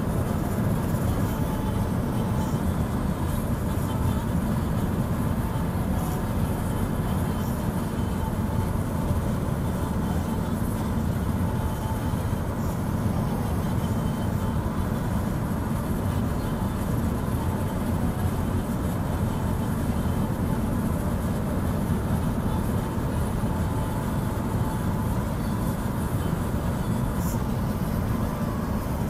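Steady low rumble of a moving vehicle's engine and tyres on the road, heard from inside the vehicle.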